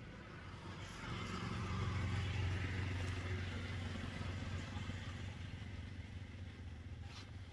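A motor vehicle passing by: a low engine hum that swells over the first two or three seconds and then fades away, with a brief tick near the end.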